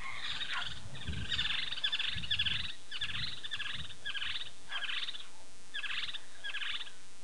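Short trilled chirps from a small calling animal, repeating about every half second, with a low rumble beneath them for the first few seconds.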